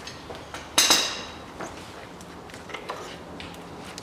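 A sharp metallic clank, two quick hits with a short ring about a second in, with lighter knocks and clicks as the ribbed accessory belt is worked off the engine's pulleys.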